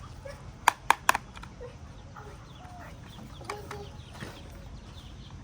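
Three sharp knocks in quick succession about a second in, with chickens clucking now and then.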